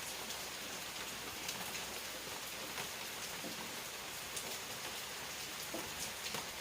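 Steady rain falling, an even hiss with scattered individual drops ticking on a nearby surface.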